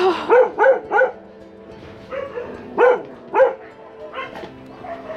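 Caged dogs barking: three quick barks in the first second, then two more about three seconds in.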